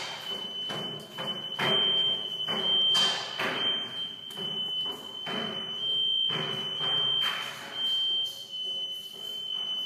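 Fire alarm sounding a steady high-pitched tone, broken by a few brief gaps, over irregular bursts of background noise.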